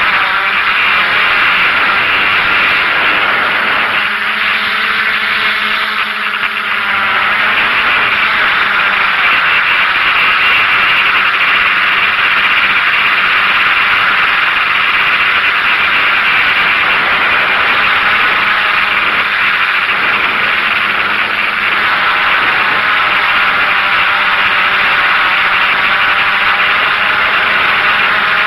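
DJI F550 hexacopter's six electric motors and propellers whirring steadily in flight, heard from a camera mounted on the drone, with a hissing wash of wind and prop noise over it. The motor pitch shifts briefly about five seconds in.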